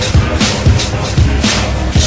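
Loud hip-hop break music with a heavy, steady kick drum and hi-hat strokes.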